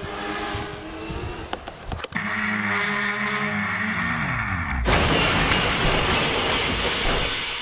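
Onboard audio of an H-quad quadcopter's motors and propellers whining, their pitch sliding down and up as it tumbles out of control in a descent, which the pilot puts down to the auto-level not being tuned for descents. It crashes about five seconds in, and a loud, even rushing noise follows as it lies in the grass.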